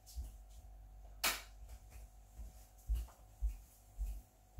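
One sharp click about a second in as the room's light switch is flicked off. Several soft low thumps sound before and after it.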